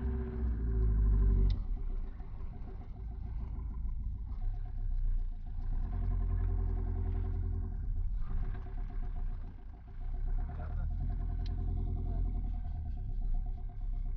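Daewoo Lublin 3 van's Andoria 2.4 diesel engine running as the van drives, heard from inside the cab. The low rumble is heaviest in the first second and a half and rises and falls in level after that.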